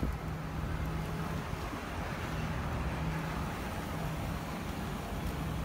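Street traffic: car engines running on the road close by, a low hum that comes and goes under a steady hiss of road noise.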